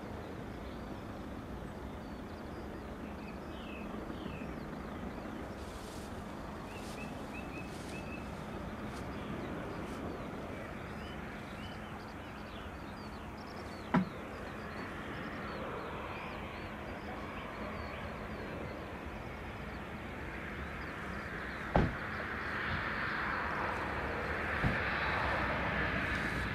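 Outdoor airport background with small birds chirping, two sharp clicks, then a jet aircraft's engines swelling in level over the last few seconds with a high whine falling in pitch.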